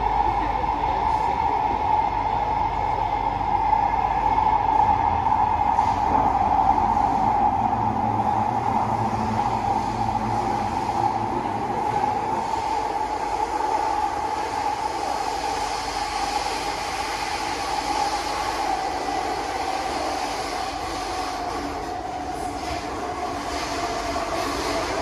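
Interior running noise of a Kawasaki–CRRC Qingdao Sifang C151B metro train under way, with a steady high whine over the rumble of the car. The whine drops slightly in pitch near the end as the train slows on its approach to the station.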